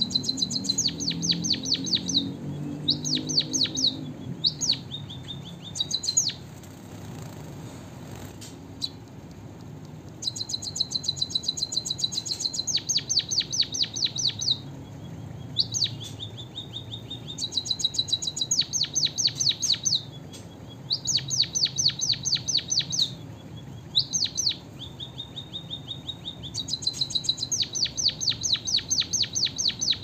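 White-headed munia (emprit kaji) singing a canary-like song it has learned, with fast trills of repeated high notes in phrases of two to four seconds and short pauses between.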